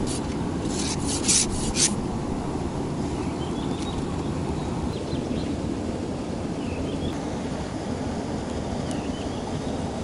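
Steady low outdoor rushing background, with a few brief rustling scrapes about a second in from hands handling the fishing rod and line. Faint short bird chirps come through now and then.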